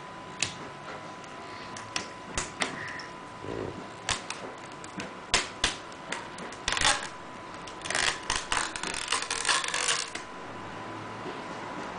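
Sharp clicks and rattles of a netbook's small plastic and metal parts being handled during disassembly, scattered at first and then coming in a quick dense run from about eight to ten seconds in.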